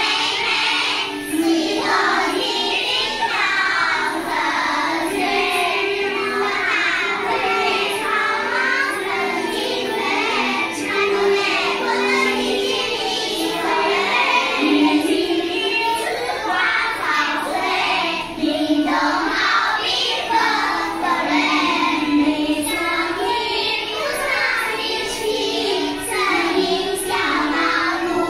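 A class of young children singing a song together in unison, steady throughout.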